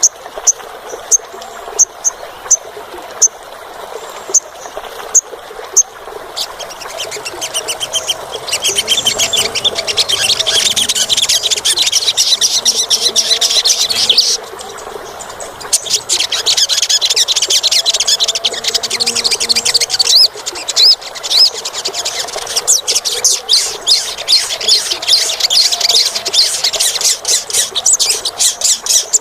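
Olive-backed sunbird singing: first a string of sharp, separate high chirps, then a fast, high, shrill trilling song that breaks off briefly about halfway through and starts again.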